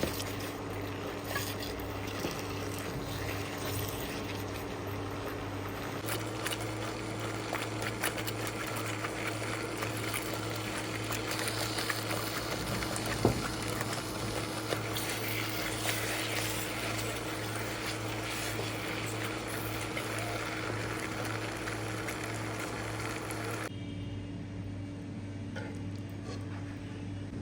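Food cooking in a pan: a steady hiss with scattered small crackles and clicks over a constant low hum, with the background changing abruptly twice.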